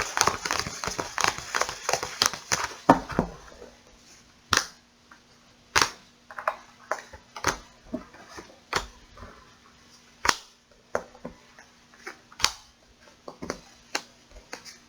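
Tarot cards being shuffled: a dense patter of card clicks for the first three seconds or so, then single sharp card snaps about once a second.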